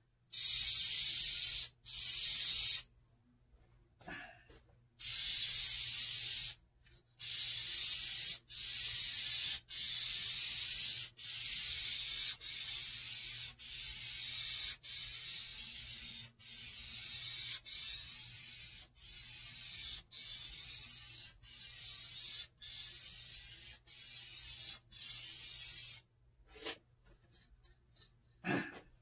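Aerosol can of vinyl and fabric paint spraying in a long run of short hissing bursts, each about a second long with brief pauses between. The bursts grow somewhat quieter about halfway through and stop a few seconds before the end.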